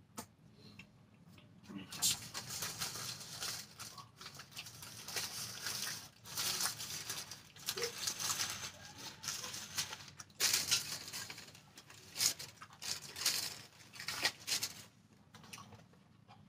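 A person chewing a mouthful of burger close to the microphone, irregular mouth noises that come and go, thinning out near the end.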